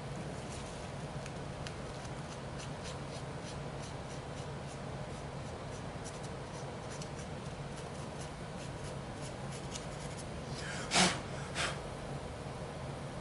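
Tissue rubbing and scrubbing over a graphics card's memory chips to clean off dust and old residue: light scratchy strokes and small handling clicks over a steady low hum. Near the end come two short, louder scuffs.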